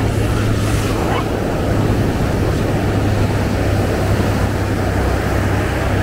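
Ocean surf breaking and washing up the beach, a steady rumbling roar of noise.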